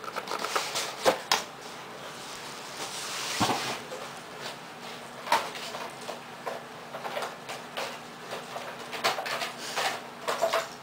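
Scattered clicks and knocks with a stretch of rustling: small hard objects and fabric being handled at close range.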